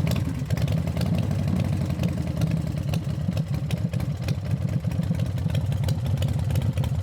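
Motorcycle engine idling steadily, a fast even run of low firing pulses.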